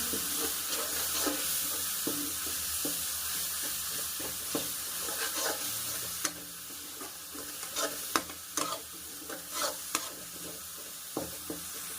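Food sizzling as it fries in hot oil in a pan while it is stirred with a spatula. The sizzle is steady at first and dies down after about six seconds. Scrapes and clinks of the spatula against the pan come through more clearly in the second half.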